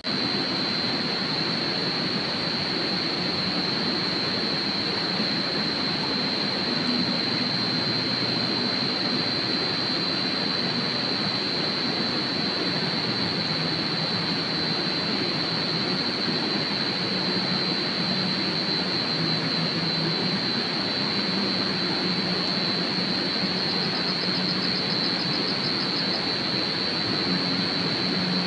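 A steady, loud rushing noise starts suddenly and holds even, with a continuous high-pitched insect trill above it.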